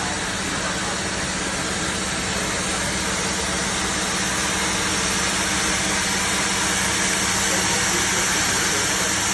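HY-420A-2 automatic double meat band saw running steadily: a constant motor hum under an even, bright hiss from the blades, growing slightly louder over the last few seconds.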